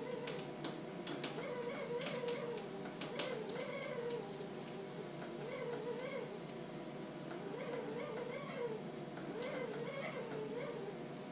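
An animal's drawn-out calls, rising and falling in pitch over and over with hardly a break. A few sharp clicks come in the first few seconds.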